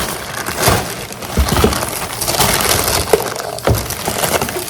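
Packaging being handled by hand: crackling, crinkling plastic and rustling, with several sharp knocks.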